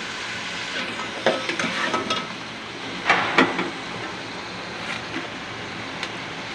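Chicken and potato pieces sizzling in oil in a metal pot, with a metal spoon scraping and clinking against the pot as the mixture is stirred, mostly in the first half.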